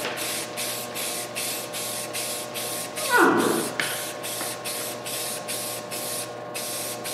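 Aerosol spray-paint can spraying in quick short bursts, about three a second, with a brief pause near the end. About three seconds in comes a short, louder sound that falls sharply in pitch, over a faint steady hum.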